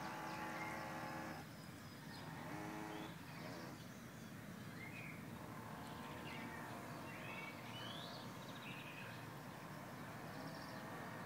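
Jet drive units of a homemade RC amphibious tank running with a steady whine, cutting off about a second and a half in, then a short burst about a second later as the model coasts on the water.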